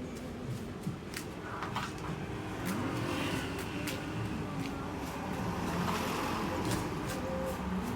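Kitchen background noise: a steady rumble with scattered sharp clicks and clatter, and faint voices underneath.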